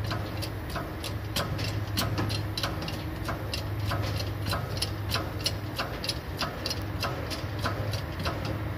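A Mercedes-Benz truck's diesel engine idling with a steady low hum and a regular ticking about three times a second.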